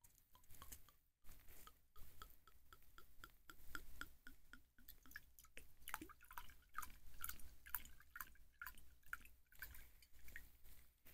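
Red wine dripping off a metal spoon into a cup of wine: faint, irregular little plinks, several a second.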